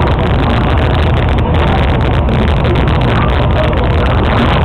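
Ferry boat's engine running steadily while underway: a constant low rumble with a noisy wash over it.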